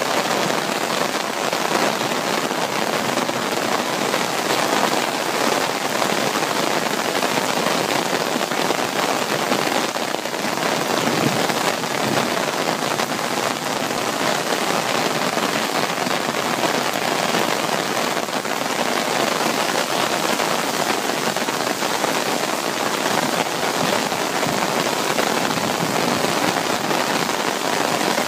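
Heavy rain falling on wet paving and cobbles: a dense, even hiss that holds steady throughout.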